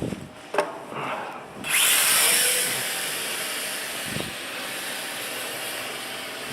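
WL Toys V949 micro quadcopter's motors and propellers spinning up suddenly about a second and a half in, then running steadily with a high buzzing whine as it flies. A few short knocks and sounds come before the spin-up.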